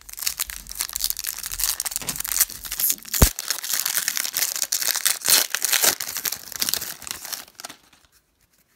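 Foil wrapper of a 2013 Prestige football card pack crinkling and tearing as it is ripped open by hand, with one sharp click about three seconds in. The crinkling dies away shortly before the end.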